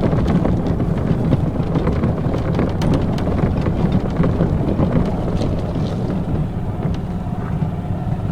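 Golf cart driving along a rough path: a steady low rumble of the cart and its wheels, with wind buffeting the microphone and scattered light rattles and clicks.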